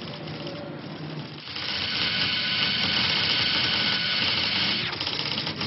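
A small electric motor whirring loudly: it starts about a second and a half in, runs steadily for about three seconds and cuts off.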